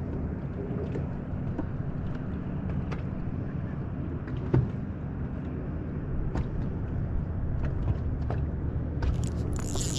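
A fishing boat's steady low hum, with scattered light clicks and taps. A brighter hiss comes in near the end.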